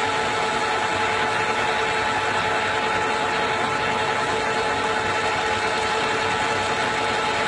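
Metal lathe running steadily while turning down a titanium muzzle brake on a rifle barrel: an even machine noise with a few constant whining tones.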